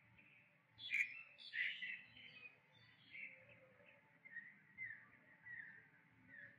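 Short, high-pitched chirping calls from an animal, a louder cluster about a second in, then softer chirps repeating every second or so.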